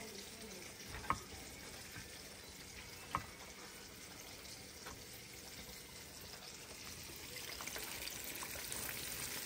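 Breaded chicken tenders deep-frying in a pan of oil: a steady, faint sizzle that grows louder near the end. Two light knocks sound about one and three seconds in.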